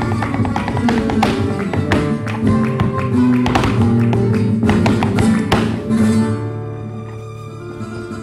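Flamenco guitar playing a farruca: fast chords and runs with sharp, accented strikes. About two seconds before the end a chord is left ringing and fades away.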